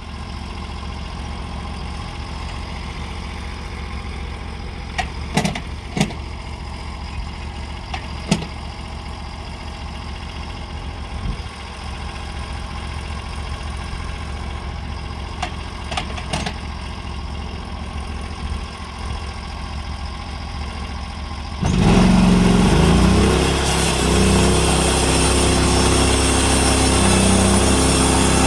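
Portable sawmill's engine idling steadily, with a few sharp knocks, then revving up about three-quarters of the way through and running on at higher speed as the mill is brought up to cutting speed.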